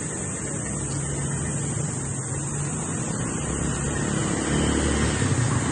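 Road traffic: a motor vehicle's engine running with a steady low hum and tyre noise, growing louder near the end as it passes.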